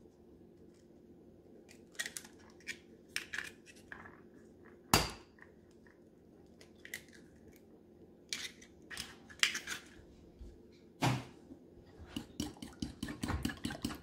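Two eggs cracked one after the other on the rim of a ceramic bowl: two sharp knocks about six seconds apart, each followed by small crackling clicks as the shell is pulled open. Near the end a metal fork starts beating the eggs and banana, clicking quickly against the bowl.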